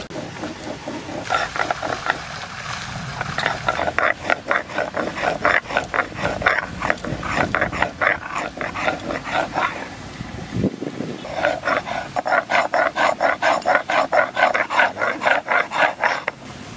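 Stone roller rasping back and forth on a flat stone grinding slab (shil-nora), grinding dried red chillies into a wet paste: quick rhythmic strokes, a few a second, with a brief pause about ten seconds in before the grinding starts again.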